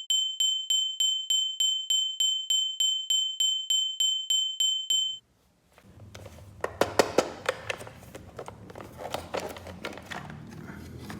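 A high, bell-like electronic ping repeated about three times a second for five seconds, then cut off. After a short silence come irregular clicks, taps and rustling of plastic packaging and toy pieces being handled.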